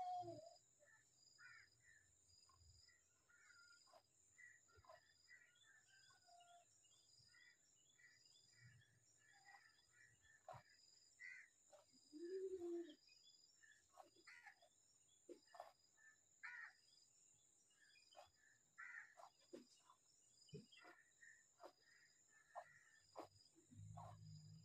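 Faint outdoor ambience: a steady high insect drone with an evenly pulsing cricket-like chirp, and scattered short bird chirps. A brief low sound stands out about halfway through.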